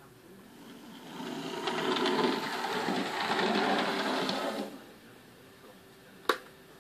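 Bachmann HO scale model streetcar running on DC track, its small motor and wheels giving a steady whir that builds over about a second and cuts off just under five seconds in. A single sharp click comes about six seconds in.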